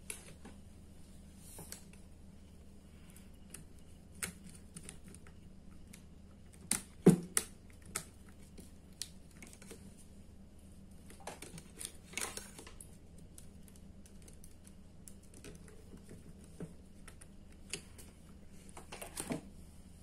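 A small screwdriver and wire ends clicking and tapping against the terminal screws and plastic housing of a contactor's thermal overload relay as a wire is fastened, with one sharper knock about seven seconds in.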